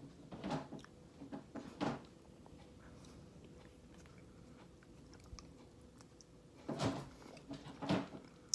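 A person eating ice cream: short bursts of mouth and chewing sounds near the start and again near the end, with a quiet stretch between and a sharp click at the very end.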